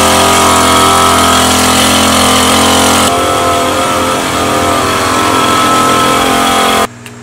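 Small engine of a backpack power sprayer running steadily at constant speed while spraying disinfectant. The tone shifts about three seconds in and cuts off abruptly near the end.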